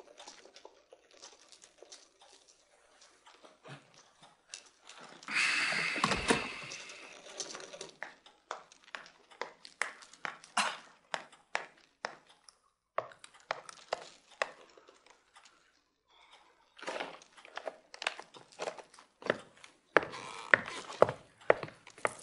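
Quiet room sounds: irregular sharp clicks and knocks, with a louder rustling noise lasting about two seconds some five seconds in.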